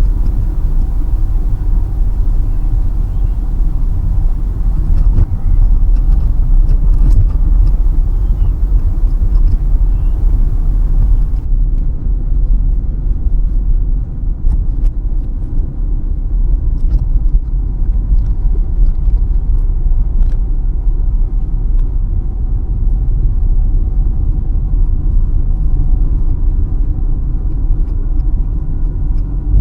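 Steady low rumble of a car's engine and tyres on the road, heard from inside the moving car's cabin. A light high hiss over it drops away about a third of the way through.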